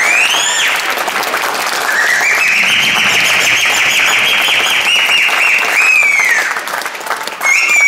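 Audience applauding, with a high whistle-like tone over it. The tone swoops up near the start, holds steady with a fast wobble for about four seconds, then slides down.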